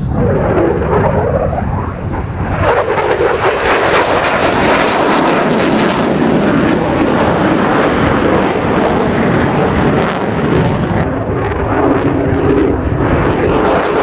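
Lockheed Martin F-35A Lightning II's F135 turbofan in afterburner: a shifting whine for the first couple of seconds, then a loud crackling roar from about two and a half seconds in, as the jet climbs at full power.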